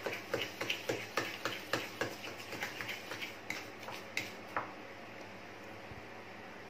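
Metal spoon clicking against a glass bowl while thick hung curd and sugar are stirred, in quick even strokes about three a second. The strokes thin out about four seconds in and stop.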